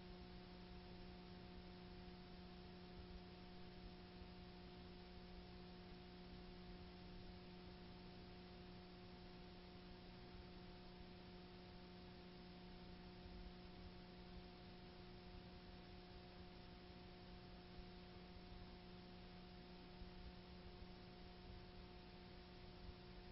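Near silence: a steady low electrical hum over faint hiss.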